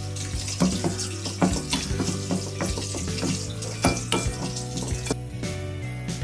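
A metal spoon stirring spice paste in a steel bowl, scraping and clinking against the sides in quick irregular taps.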